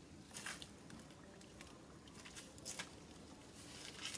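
Faint, scattered scuffs and rustles of a macaque moving and sitting down on paving, a few short ones spread through the quiet.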